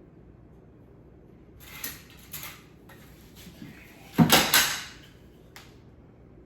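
Pieces of wood being handled and set down: a few short knocks and scrapes, with a louder clatter about four seconds in.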